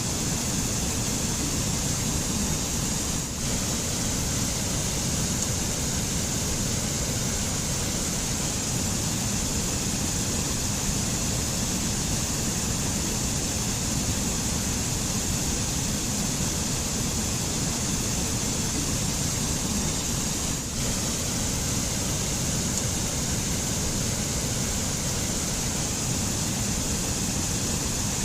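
White water of a mountain stream rushing over rocks and into pools: a steady, unbroken rush.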